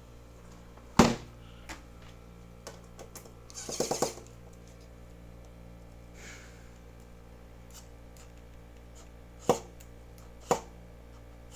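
Sharp clicks and knocks of a screwdriver working on a metal power supply casing as its screws are taken out: one loud click about a second in, a short rattle about four seconds in, and two more clicks near the end, over a steady low hum.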